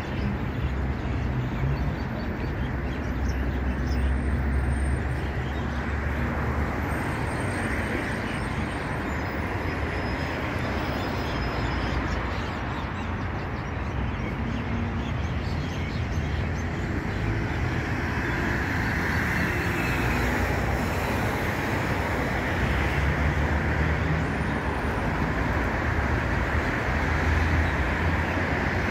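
City road traffic: a steady wash of passing cars, their low engine rumble swelling and fading as vehicles go by.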